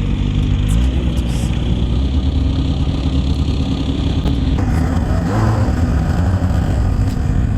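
Snowmobile engine running steadily under way, its pitch rising briefly about a second in as it speeds up.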